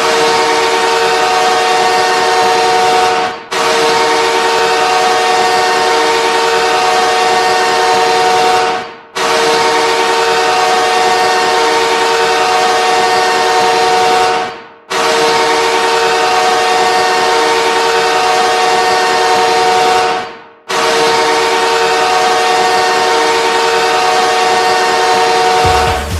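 Los Angeles Kings arena goal horn blasting five times: a shorter first blast, then four long ones of about five seconds each. Each blast trails off and the next one starts sharply.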